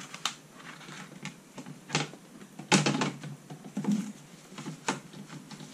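Hand handling of a stamping platform and cardstock: a handful of separate light clicks and knocks, the loudest cluster about three seconds in.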